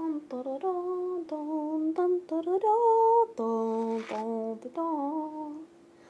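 A young girl singing a wordless tune in long held notes that step up and down in pitch, stopping shortly before the end.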